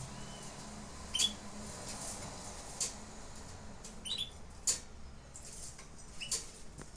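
Canaries giving short, sharp chirp calls, a handful of single notes spaced a second or two apart, over a faint low hum.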